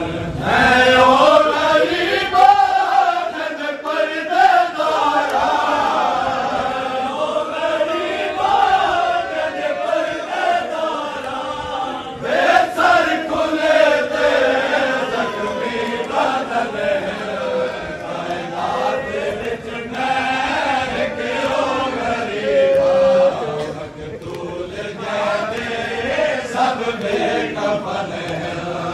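A group of men chanting a noha, a Shia mourning lament for Imam Hussain, in long wavering melodic lines.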